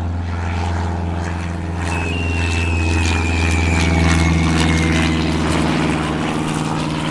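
Propeller airplane engine droning steadily as a sound effect. A thin whistle slides slowly down in pitch partway through.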